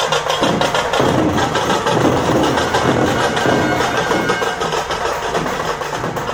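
Live procession music: drums beating a fast, steady rhythm with a wind instrument playing over them.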